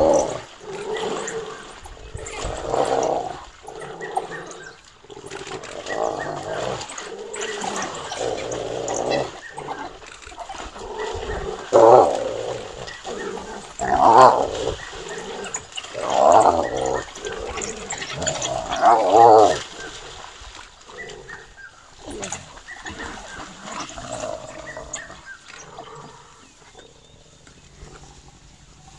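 A spotted hyena calls out loudly in repeated bursts, and African wild dogs snap and call around it as they mob it in shallow water, with splashing. The four loudest calls come in the middle, two to three seconds apart.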